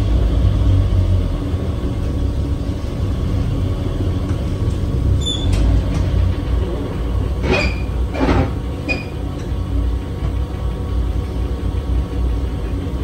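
1949 Crown Supercoach bus's International Red Diamond 501 inline-six engine running at idle, a steady low rumble heard from inside the bus. Two short rushing noises come a little past the middle.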